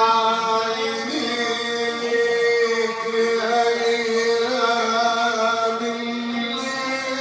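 Arabic song: a man's voice holds a long, slowly wavering note over instrumental accompaniment.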